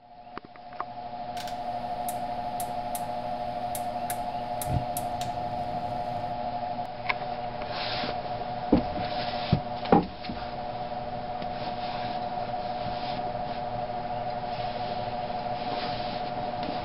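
A steady hum at one pitch throughout, with a quick run of about eight sharp ticks about a second and a half in, and a few knocks and rubbing sounds later on, the loudest around the middle.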